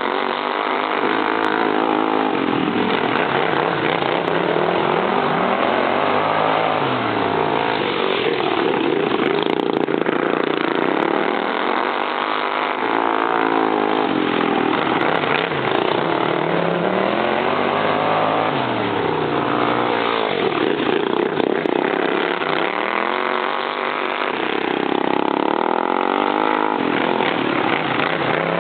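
Several modified racing lawn mower engines running hard, their pitch rising and falling over and over every few seconds as the mowers speed up and slow for the turns.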